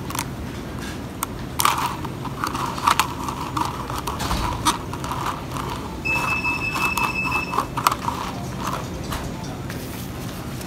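Ice cubes clicking and rattling against a plastic cup as an iced coffee is stirred with a straw. A steady high tone sounds for about two seconds, about six seconds in.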